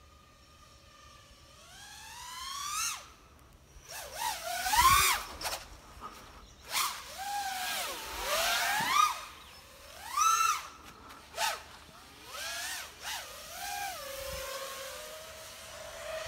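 Small quadcopter drone's electric motors whining in repeated bursts, the pitch swooping up and down sharply as the throttle is punched and let off. It is loudest about a third of the way in.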